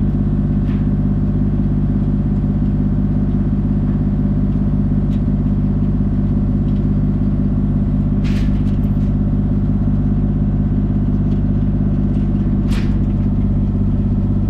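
Diesel engine of a compact construction machine idling steadily, with a couple of short metallic clanks about eight and thirteen seconds in.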